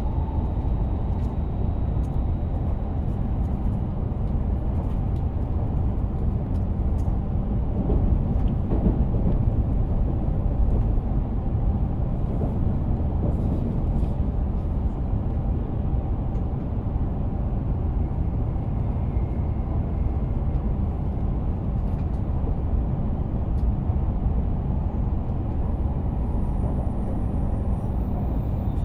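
E7-series shinkansen running at speed, heard from inside the passenger car: a steady low rumble of wheels on rail and car-body noise, swelling slightly about eight seconds in.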